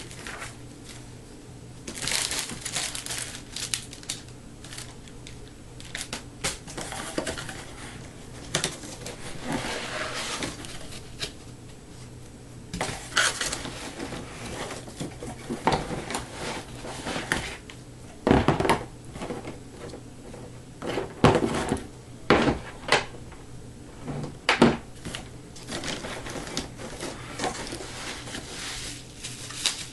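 Laptop packaging being opened and handled: irregular rustling, crinkling and scraping of cardboard and plastic wrap, with scattered sharp knocks.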